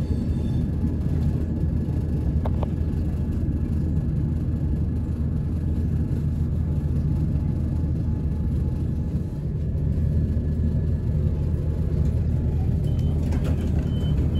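Steady low rumble of rail traffic heard from inside a passenger coach, as a container freight train passes on the next track. A faint, repeated high beep starts near the end.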